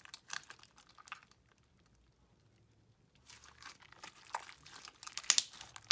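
Thick, heavily activated slime being squeezed and kneaded by hand, giving sticky crackles and small pops while vegetable glycerin is worked in to soften it. The crackling pauses for about two seconds in the middle and picks up again, with the sharpest pop near the end.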